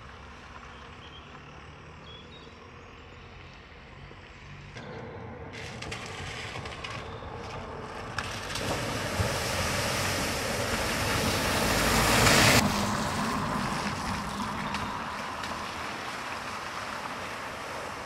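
Cars driving through a flooded ford, their tyres throwing up a rushing splash of water. The splash swells to its loudest about twelve seconds in, then cuts off suddenly and gives way to a quieter wash of water.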